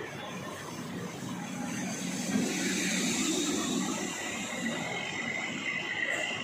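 Road traffic: vehicle engines and tyres going by, growing louder about two seconds in. A thin steady high tone runs underneath.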